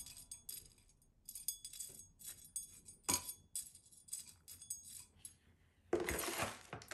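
Gritty succulent soil mix with small stones pattering and trickling off a metal scoop into a ceramic pot, with light clinks. About six seconds in, a louder, rougher scrape of the scoop going back into the bowl of soil.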